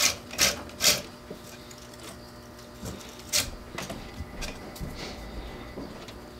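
Masking tape being pulled off its roll in short pulls and wound onto a fishing rod blank to build up reel-seat bushings: three quick pulls at the start, a louder one a little after three seconds, then fainter rustles.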